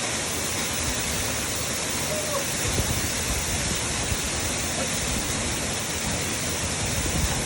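Waterfall pouring steadily: a dense, unbroken rush of falling water.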